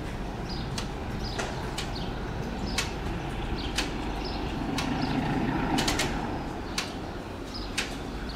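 English Electric CP 1400-class diesel locomotive approaching at low speed, its eight-cylinder diesel engine running with a low, steady sound that swells about five to six seconds in. Sharp clicks come about once a second.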